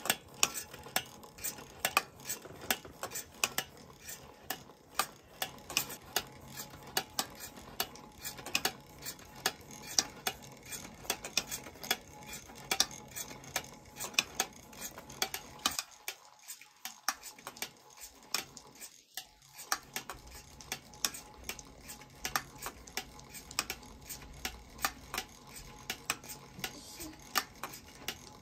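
Märklin toy steam engine running under steam with the tin drive models it powers, giving sharp metallic clinks and ticks a few times a second over a faint steady hum.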